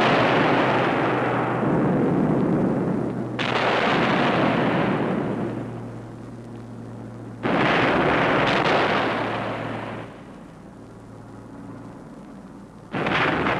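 Heavy aerial bomb explosions in a series. Each blast starts suddenly and dies away in a long rumble over a few seconds, and a new one comes roughly every four seconds.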